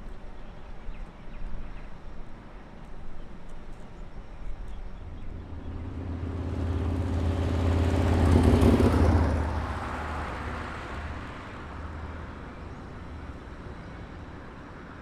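A motor vehicle passes by: its low engine hum and tyre hiss build from about five seconds in, are loudest a little past halfway, then fade away.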